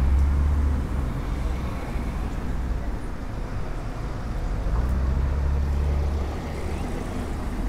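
Street ambience with road traffic: a low vehicle rumble that swells at the start and again about five seconds in.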